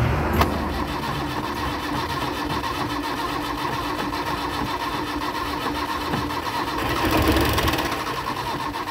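Toyota Corolla KE36's engine being cranked over by its starter motor in a fast, even rhythm, not yet catching, on a first start after eight years standing. A short click comes just after the start, and the cranking swells briefly about seven seconds in.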